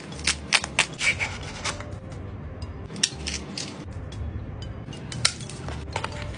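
Cardboard toy packaging being torn open along a perforated flap and foil-wrapped pieces pulled out: sharp crackles and clicks in three bursts, the first the longest.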